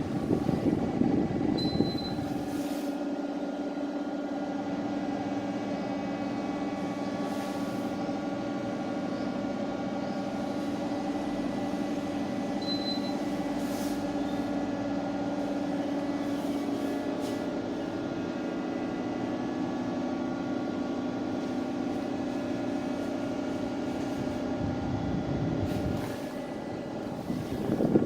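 Daikin FT25BXV14 split air conditioner running with a steady hum and a faint whine. Two short high beeps about ten seconds apart, the unit's acknowledgement of a remote command. A louder low rush of air near the start and again near the end.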